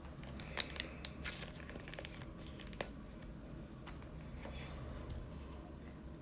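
Bowman Chrome baseball cards and their foil pack wrappers being handled: a cluster of sharp crinkles and flicks in the first three seconds, loudest about half a second in, then soft rustling.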